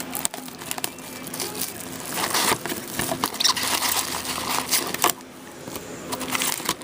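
Plastic wrapping crinkling and tearing, with clicks of cardboard being handled, as a sealed box of hockey cards is opened.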